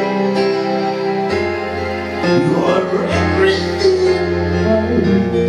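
A live band playing: electronic keyboards hold chords over a bass line that changes note a couple of times, and a voice sings a bending phrase midway through.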